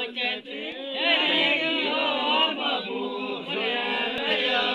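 Group of men singing a Santali Sohrai cattle-waking (gai jagao) song together, several voices overlapping.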